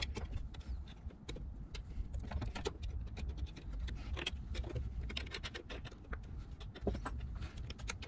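Handwork with a screwdriver and small steel screws and nuts: light, scattered clicks and scrapes of metal hardware and the driver as a small power supply is screwed down to the base.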